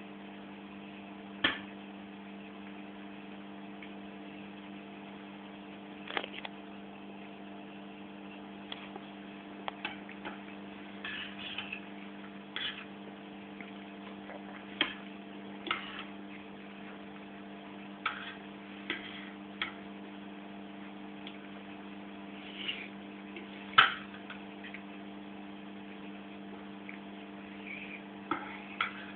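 Irregular light clinks and taps of cutlery on a plate during a meal, over a steady electrical hum. The loudest clink comes about three-quarters of the way through.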